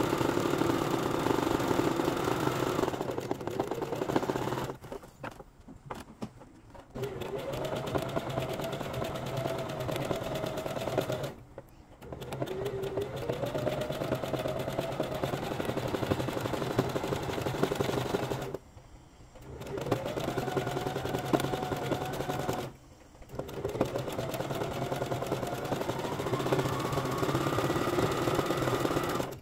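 Domestic sewing machine stitching zigzag in five runs broken by four short pauses. The motor's pitch rises and falls as the foot control speeds it up and slows it.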